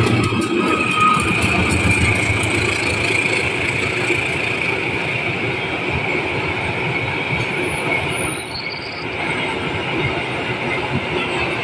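Container freight train passing at speed: the diesel locomotive's low rumble fades in the first second, then the wagons roll by with a steady clatter of wheels on rails and a high ring running through it.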